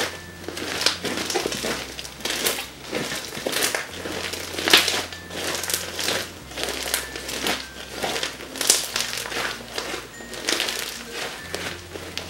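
Blue homemade slime being kneaded and squeezed in plastic-gloved hands, giving irregular crackling, squishing pops, a few a second.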